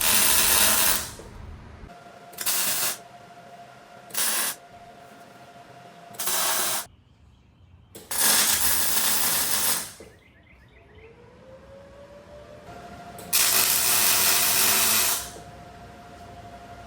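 Welding arc striking in six separate bursts while a part is tack-welded, with a crackling hiss during each burst. The first four tacks are short and the last two run for about two seconds each. A faint steady hum sits between the bursts.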